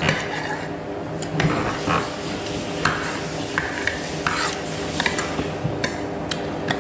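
Wooden chopsticks stirring noodles and clicking and scraping against a ceramic bowl in irregular taps, with chewing sounds, over a steady low hum.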